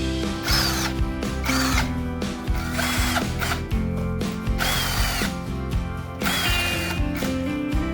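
A handheld power tool, such as a drill, running in about five short bursts over background music.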